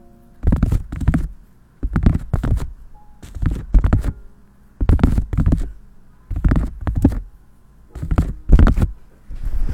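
Gloved hands rubbing and scrubbing a fluffy microphone cover in slow rhythmic strokes. There is a scrub about every second and a half, each with two pulses.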